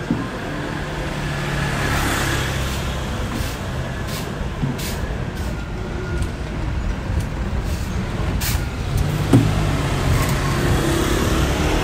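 City street traffic: a heavy vehicle's engine running with a steady low drone, a hiss swelling about two seconds in, and a few sharp clicks near the end.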